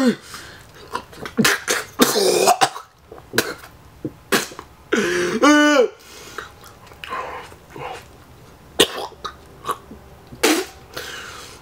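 A man coughing and gagging in several short bouts while forcing down wet dog food, with one long voiced groan of disgust about five seconds in.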